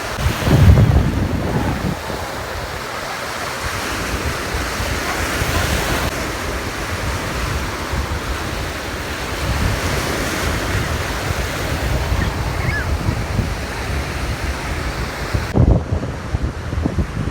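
Ocean surf washing onto a beach, with wind buffeting the microphone in low rumbling gusts, the strongest about a second in.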